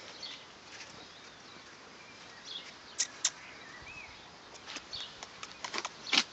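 A few sharp clicks and scuffs, twice about three seconds in and again near the end, from a Doberman puppy moving about on a dirt path with a rope toy and its hard plastic piece in its mouth. A faint bird chirp about four seconds in.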